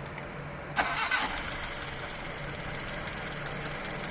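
Petrol car engine with distributor ignition cranking briefly and catching about a second in without throttle, then idling steadily. The short crank is the sign that the ignition timing is now set right.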